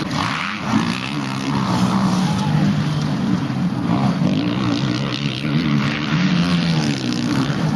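Motocross bike engines running, their pitch rising and falling repeatedly as the throttles are opened and closed.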